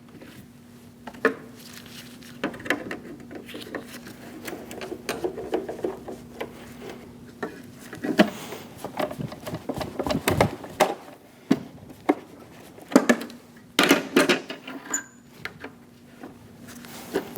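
Scattered clicks, taps and light knocks of plastic and metal parts being handled as the linkage rod is worked out of a van's rear door handle assembly, with a few louder knocks and rattles in the middle and near the end.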